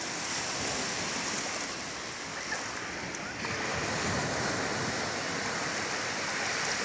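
Ocean surf washing onto a sandy beach: a steady rush of noise.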